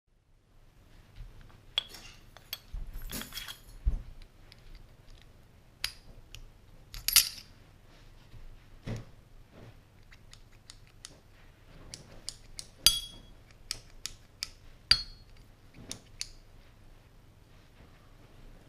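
Irregular metallic clicks, clinks and short scrapes of an Autococker paintball marker's body and quick-release bolt being handled, with a few louder sharp clicks.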